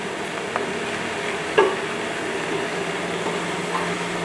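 Lamb pieces and spices sizzling as they brown in butter in a stainless steel pot, stirred with a wooden spoon. The spoon knocks sharply against the pot a couple of times, the louder knock about a second and a half in.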